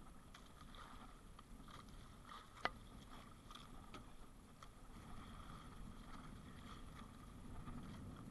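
Faint, steady wash of sea water around a small outrigger boat, with scattered light ticks and one sharp click about two and a half seconds in.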